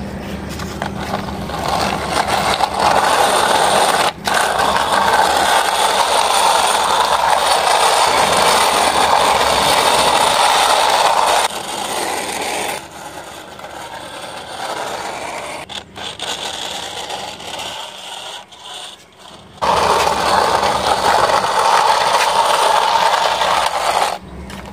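Plastic toy car wheels rolling and scraping on a rough concrete ledge as the car is pushed by hand. The grinding noise is steady at first, goes quieter midway, stops briefly, then comes back loud near the end.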